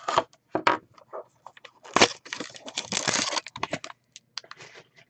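Crinkling and rustling of packaging handled close by, with scattered sharp clicks and taps; a dense burst of crinkling starts about two seconds in and lasts over a second.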